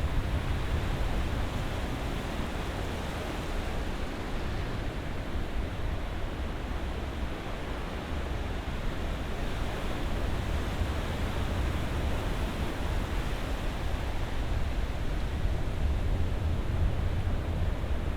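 Ocean surf: a continuous wash of waves with a deep low rumble, easing a little a few seconds in and building again in the second half.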